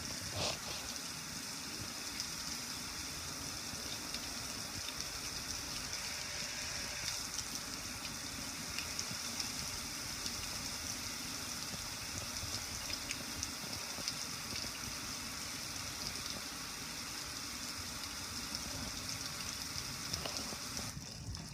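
Garden hose spray nozzle spraying water onto a black gas grill, a steady hiss of water splashing off the metal lid and control panel. The spray stops near the end.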